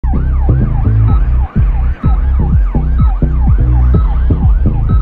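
Emergency-vehicle siren in a fast yelp, rising and falling about three times a second, over music with a heavy bass beat.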